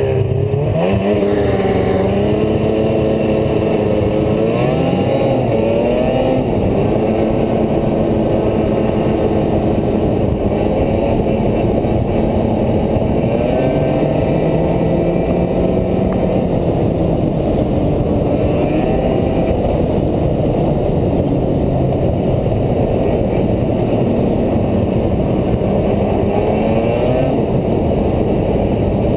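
2007 Ski-Doo Rev 440 snowmobile's two-stroke twin engine under way, its pitch rising and falling several times as the throttle is opened and eased off.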